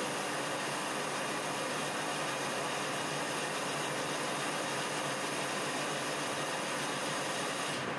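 Colchester lathe running steadily, a constant even mix of motor and gear noise, while a carbide tool faces a cast iron slug in the chuck. The higher hiss thins out near the end.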